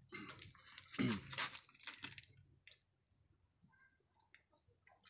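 Oyster mushroom clusters being pulled by hand off plastic grow bags, with crinkling plastic and crisp crunching and snapping for about the first two seconds, loudest about a second in. After that it is mostly quiet.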